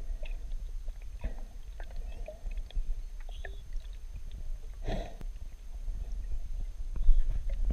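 Underwater sound picked up by a submerged camera: a steady low rumble of moving water with scattered clicks and taps, a louder rush about five seconds in, and a few short squeaky chirps.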